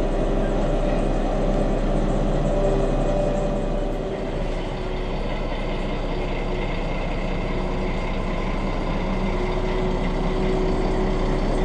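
Diesel locomotive engine idling steadily, a constant low running hum.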